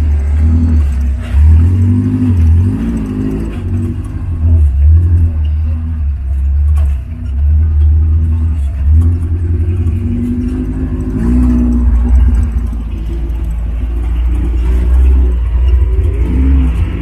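Off-road jeep engine running while driving, revving up and down over and over with a strong low rumble.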